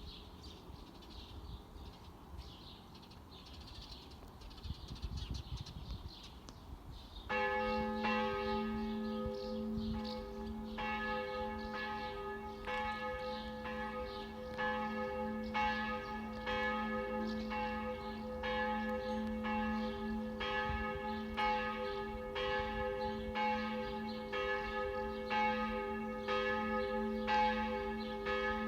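Church bells ringing: after about seven seconds of faint high chirping, several bells of different pitch start up together in a continuous peal, struck over and over, their tones overlapping and humming on.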